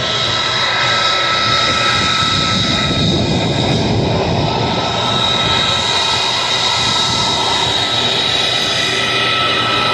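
F-35 Lightning II's single afterburning turbofan passing by: a loud, continuous jet roar with steady high-pitched whining tones over it. The low rumble swells about three to four seconds in.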